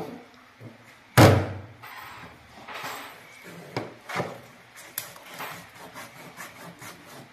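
Large kitchen knife cutting raw chicken on a plastic cutting board: one heavy chop about a second in, then lighter knocks and ticks of the blade on the board.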